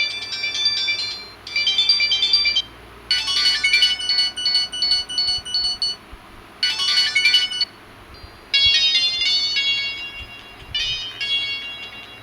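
Mobile phone ringtones played through the phone's small speaker: a run of about six different short, high-pitched melodies, each stopping after a second or two with a brief pause before the next.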